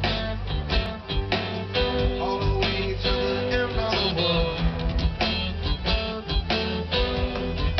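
Live rock band playing a song, guitar over a heavy bass line and a steady drum beat, heard from the audience.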